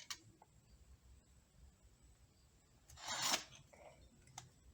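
Transmission parts being handled on the bench: a few light clicks, and about three seconds in a short scrape as one metal piece rubs against another.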